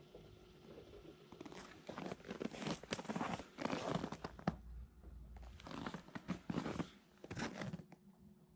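Faint steady hum from the Chevy Bolt EV's battery heating system, which the owner thinks has just switched on in the extreme cold. From about a second and a half in until near the end it is mostly covered by repeated loud crunching and rustling close to the microphone.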